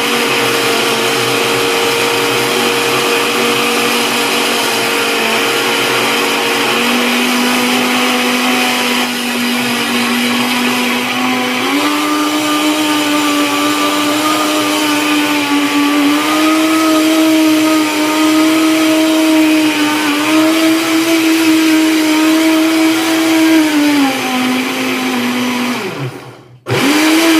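Blokker BL-13103 blender motor running, blending a liquid in its glass jar. The whine steps up in pitch a few times as the speed is raised, then winds down and stops near the end before starting again briefly.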